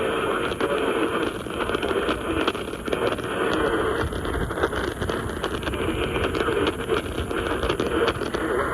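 Radio static: a steady hiss with frequent crackles and pops.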